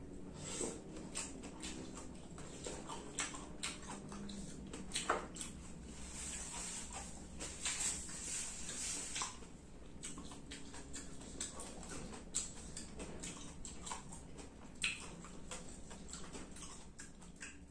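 Eating by hand: chewing and mouth smacks, with many small irregular clicks and taps of fingers picking at scraps on a plate.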